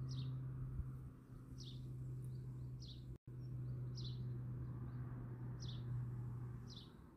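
A small bird repeating a short, high call that slides downward, about once every second or so, over a steady low hum. The sound drops out for an instant about three seconds in.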